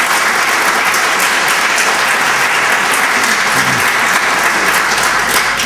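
Audience applauding, a steady dense clapping that stops at the end.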